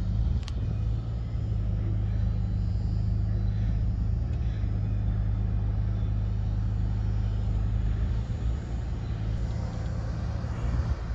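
Steady low engine hum of an idling motor, easing slightly in the second half, with a single click at the start.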